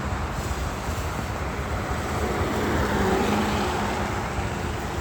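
Road traffic passing on a rain-wet highway: steady tyre hiss and engine noise, with one vehicle swelling past about three seconds in.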